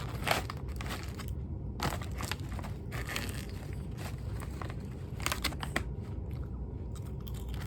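Close-up crunching and chewing of crisp shrimp rice cakes, a run of irregular sharp crunches.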